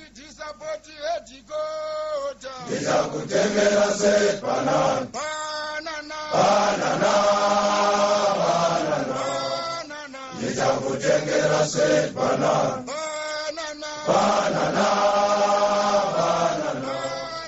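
A group of men chanting a song together, sparse at first and swelling to a full chorus about two and a half seconds in, with short breaks between phrases.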